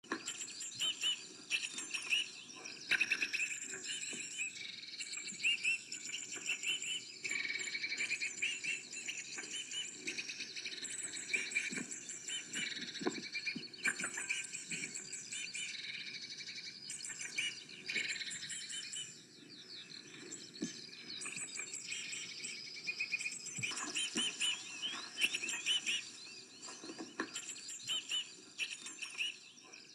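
Birds singing and chirping, several at once, in a continuous outdoor chorus of short, quick calls and trills.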